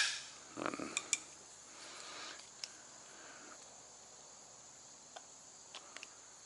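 A last sharp hammer blow on an impact screwdriver rings out right at the start, then only faint scattered clicks and light taps of tools and metal being handled, over a steady high hiss.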